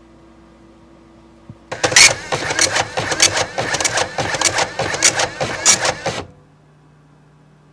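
Office printer running with a fast, loud clattering rattle for about four and a half seconds, then stopping abruptly as it jams on the paper.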